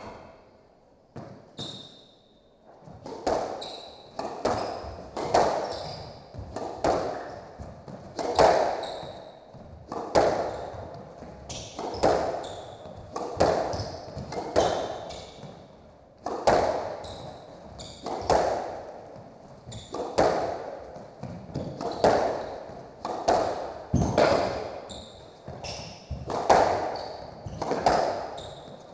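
A squash rally: the ball is struck by the racquets and smacks off the court walls in a quick, steady back-and-forth of sharp hits, each one echoing in the enclosed court. The hits start a couple of seconds in.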